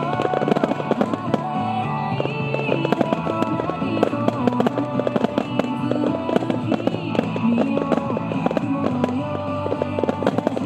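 A star mine fireworks barrage, many bursts and crackles in rapid succession, over loud music with singing played for the synchronized show.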